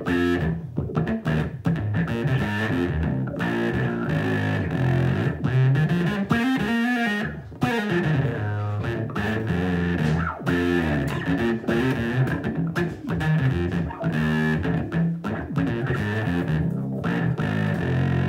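Electric bass guitar played through a Source Audio Bass Envelope Filter and a compressor, a continuous run of notes with an auto-wah filter sweep on them.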